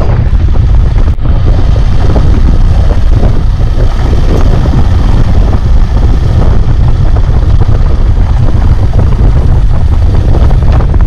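Steady wind noise on the microphone of a motorcycle riding along a dirt road, over a low rumble from the bike running beneath it.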